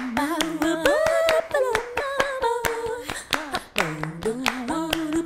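A female voice singing long, held wordless notes that glide between pitches, over a quick, rhythmic pattern of sharp handclaps.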